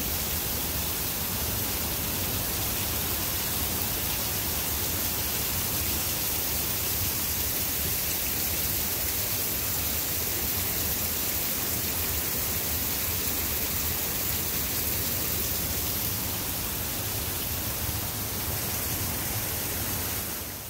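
Steady rush of a large waterfall running full with snowmelt, heard as an even wash of falling water.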